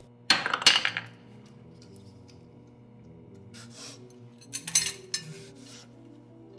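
Clattering and clinking of hard objects, in a loud flurry about half a second in, a quieter one near four seconds, and another loud flurry around five seconds in, over soft held music notes.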